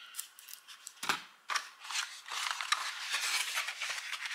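Handling of a cardboard mouse box: a couple of sharp clicks about a second in, then steady scratchy rustling and scraping of cardboard as a cable is drawn out of the box insert.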